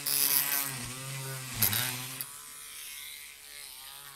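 Dremel rotary tool running with a steady whine as its bit drills a post hole into the layout scenery, with a loud scraping burst at the start and again about a second and a half in. The motor then winds down and fades out near the end.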